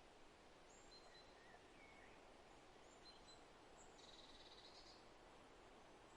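Faint, steady wind through forest trees, with scattered distant bird calls: short high whistles, a quick rising chirp, and a brief buzzy trill about four seconds in.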